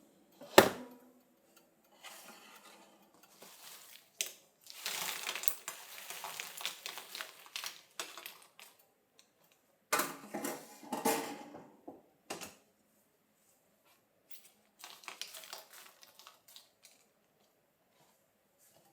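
Kitchen handling sounds: a sharp knock about half a second in, then several stretches of clattering and rustling of dishes and containers, with quiet gaps between them.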